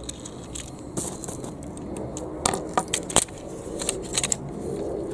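Handling noise from a plastic toy tractor chassis being turned over in the hands: light rattles and a handful of sharp plastic clicks and taps, most of them between about two and a half and four and a half seconds in.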